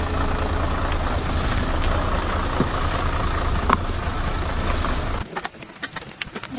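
A heavy engine running steadily with a deep rumble, stopping abruptly about five seconds in, followed by a few sharp clicks and knocks.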